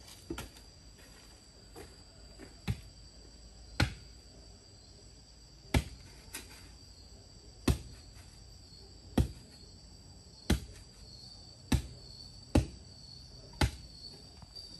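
Blade chopping on a cutting board in slow single strikes, about ten of them spaced a second or so apart. A steady faint high tone runs underneath.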